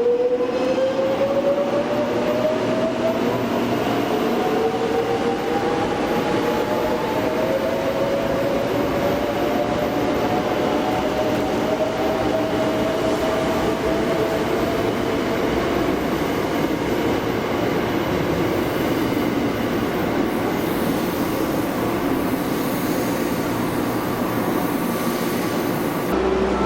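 Electric train accelerating away, its traction motors whining and rising steadily in pitch for several seconds before levelling off, over the rumble of wheels on rail.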